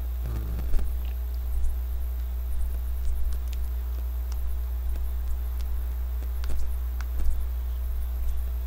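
A steady low electrical hum on the microphone, with a few faint clicks scattered through and a brief low murmur just under a second in.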